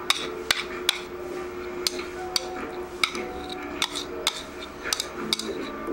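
A metal fork clicking and tapping against a plastic bowl as chopped red chilies are scraped out onto a plate: a run of sharp, uneven clicks, about two a second.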